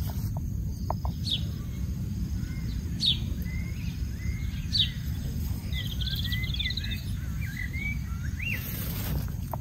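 Birds calling outdoors: a few sharp downward-swept chirps, then a run of short warbling notes. A steady low background rumble runs under them.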